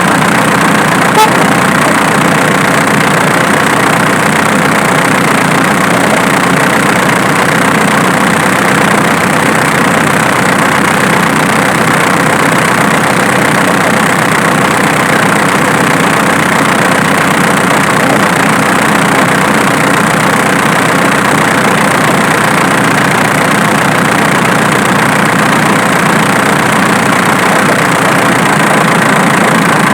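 Diesel engine idling steadily, picked up close, with one sharp click about a second in. The cracking noise in this engine has been traced to the alternator rather than the injection pump.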